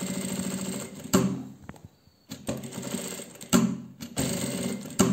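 Sewing machine stitching in short runs while topstitching fabric, stopping briefly about two seconds in and again near four seconds, with a few sharp clicks along the way.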